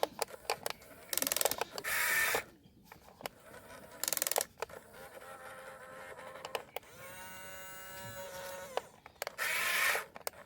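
Small electric motors and plastic gearboxes of an RC excavator whirring in short bursts with clicks, and one steady whine lasting about two seconds near the middle.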